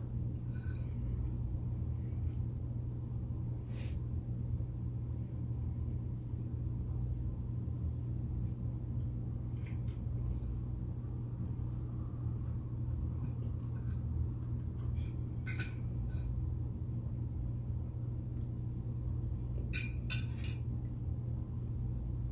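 Utensils clicking against a plate during a steak meal: a few scattered sharp clicks, with several in quick succession near the end. A steady low hum runs underneath.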